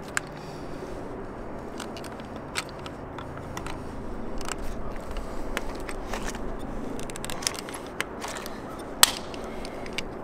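Hand pop-rivet tool being squeezed to set rivets through a strap: scattered small metallic clicks, with one sharper snap about nine seconds in, over a low steady background hum.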